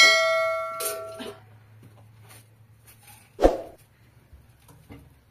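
A piece of kitchenware is struck and rings out with a clear bell-like tone that fades over about a second and a half. A single dull thump follows about three and a half seconds in.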